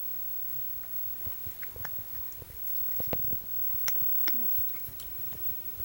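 A cat's mouth and tongue making small, irregular wet clicks and smacks as it flicks its tongue out again and again, a response to having its back rubbed.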